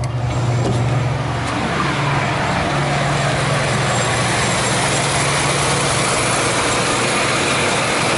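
Electric dust-extraction blower for a sandblasting booth switched on and running: a steady motor hum under a loud rush of air that builds over the first second or two, then holds steady.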